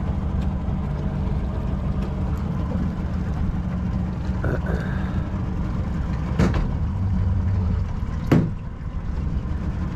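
Boat motor idling with a steady low hum, with two sharp knocks, one about six and a half seconds in and a louder one near eight and a half seconds.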